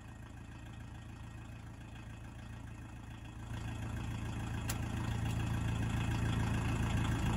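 Volkswagen Rabbit pickup's diesel engine idling steadily, growing louder about halfway through.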